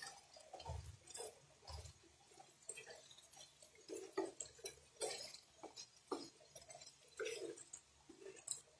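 Wooden spatula stirring macaroni in a non-stick frying pan with a little liquid: faint, irregular scrapes, clicks and wet squelching.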